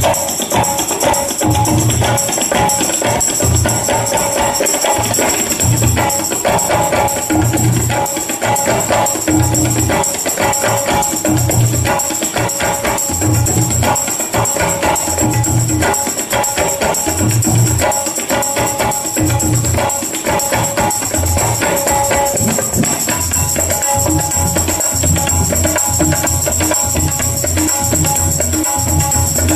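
Ensemble of several tablas playing dense, fast strokes together, with recurring deep bass strokes from the bayan, over the jingling of a hand-held frame drum with jingles.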